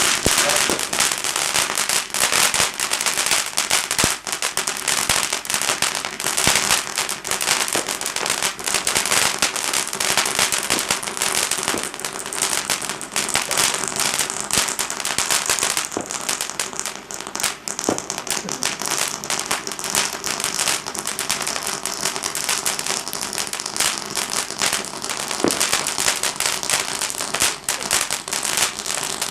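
Garden firework going off in a long, continuous run of dense, rapid crackling pops that stays at a steady level throughout.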